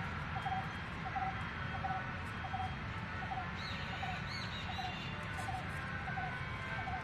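A bird repeating a short call evenly about every half second, with a few higher chirps from other birds a little before the middle, over a steady low outdoor background rumble.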